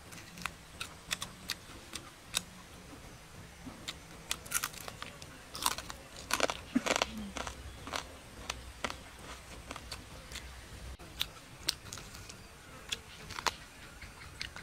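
Biting and chewing roasted crocodile meat, with irregular sharp crunches and mouth clicks, a cluster of them about halfway through.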